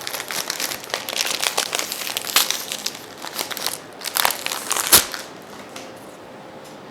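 Crinkling, crackling handling noise, ending with a sharp click about five seconds in.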